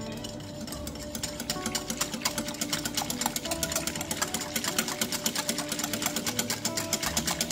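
Wire whisk beating salt water in a glass bowl, its wires clicking rapidly against the glass. The clicking grows louder about a second in.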